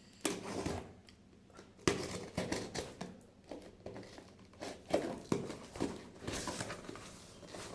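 Cardboard box and packaging being handled and opened by hand: rustling and scraping, with several sharp knocks and clicks scattered through it.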